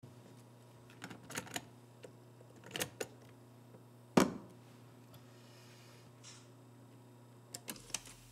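Clicks and clunks of a cassette tape being handled and loaded into a cassette recorder and its transport buttons pressed: a few clusters of sharp clicks, with one loud clunk about four seconds in. A faint low hum runs underneath.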